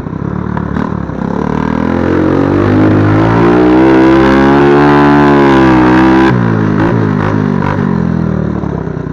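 A 110 cc mini quad's engine revving up as it rides, its pitch climbing over the first few seconds and holding high. About six seconds in the engine note drops suddenly and runs on at a lower, quieter pitch.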